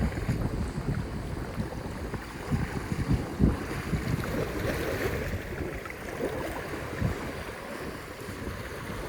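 Wind gusting on the microphone in irregular low rumbles, over the wash of waves on a beach that swells briefly about halfway through.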